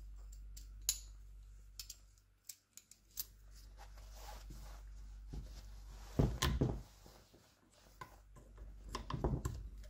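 Small metal clicks, scrapes and rattles as a locking washer is worked onto a gearbox shaft, with a busier cluster of handling noise about six seconds in and again near the end. A low steady hum sits underneath.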